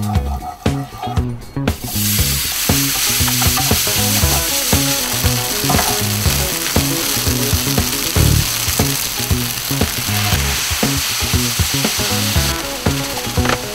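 Crumbled tofu frying in hot oil in a pan with a loud, steady sizzle that surges about two seconds in as the tofu goes in, stirred and scraped with a wooden spoon. Background music with a repeating bass line underneath.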